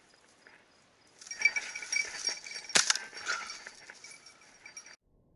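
A hunting dog's bell jingling hard and fast as the dog runs, with one sharp crack a little under halfway through; the jingling cuts off suddenly near the end.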